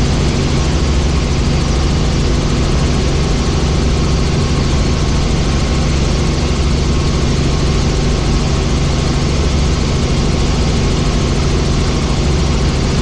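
Helicopter in flight: a loud, steady rotor and engine noise with a low steady hum, unchanging throughout.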